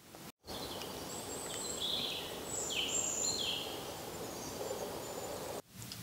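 Outdoor forest ambience: a steady background hiss with a few high songbird calls in the middle, some of them sliding down in pitch. It starts and stops abruptly.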